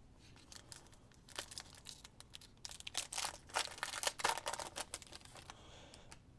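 Trading cards and a card-pack wrapper being handled: a fairly faint, quick, irregular run of crinkling, rustling and clicking that stops about a second before the end.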